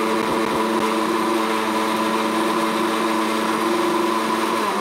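Vidiem mixer grinder's motor running steadily at full speed, its steel jar blending sliced banana and apple with milk into a smoothie. Right at the end it is switched off and its pitch starts to fall as it winds down.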